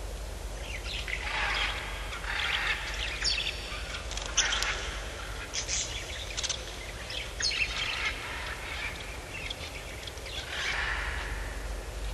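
Bird-like calls and chirps coming in bursts every second or two, over a steady low hum.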